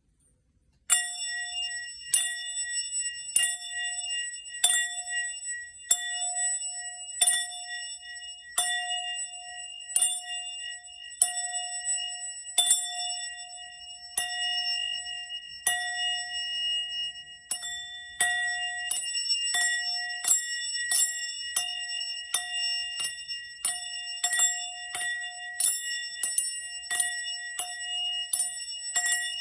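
A small metal bell struck over and over, its clear ringing tones carrying on between strikes. The strikes start about a second in at roughly one every second and a bit, and quicken to about two a second about halfway through.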